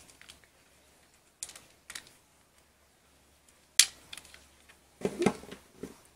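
Voltron Black Lion toy figure handled: sharp plastic clicks and knocks as its parts are folded into place, then a quick clatter as it is set down on a wooden tabletop.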